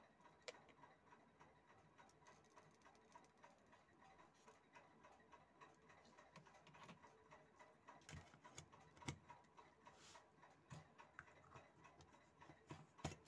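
Near silence with faint, irregular small clicks and taps from an LED bulb and tools being handled on a workbench, a few slightly stronger ones in the second half.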